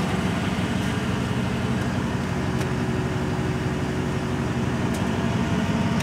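Steady mechanical hum from the pickup's on-board air compressor running to charge its air tank, with a few faint ticks.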